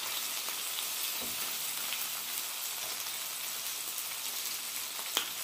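Ribeye steak, lobster tail and fried rice sizzling steadily on a hot tabletop griddle, with a few faint ticks and one sharp click about five seconds in as the spatula works the food.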